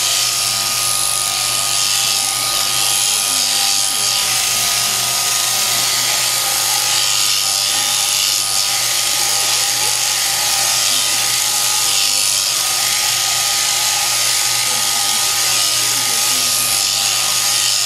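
Sheep shearing handpiece on an overhead drive running steadily as it cuts through the fleece: a constant mechanical whir with a steady hum and a high buzzing hiss.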